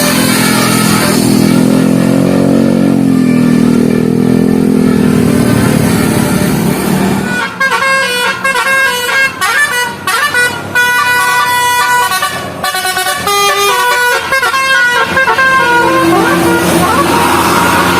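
Bus 'telolet' musical horn (basuri type) playing: a wavering horn tone for the first seven seconds or so, then a quick tune of short notes stepping up and down, and a rising note near the end.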